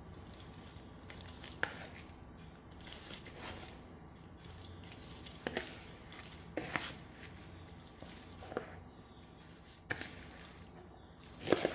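A metal spoon scraping and knocking against a plastic bowl about six times, at irregular intervals, as soaked rice is pushed out into a pot of boiling water, over a low steady background of the boil.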